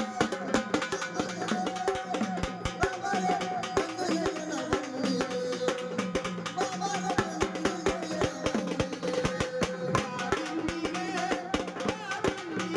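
Indian folk music: fast hand-drum strokes under a wavering melody line over a steady low drone.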